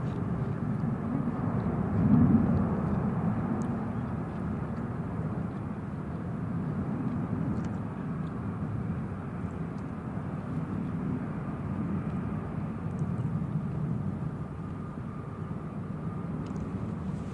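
Low, steady rumble of a distant jet airliner's engines on takeoff, swelling louder about two seconds in.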